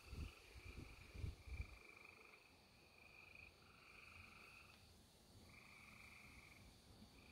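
Faint chorus of trilling animal calls at night, each trill lasting about a second and repeating in overlapping bouts. A few low thumps come in the first two seconds.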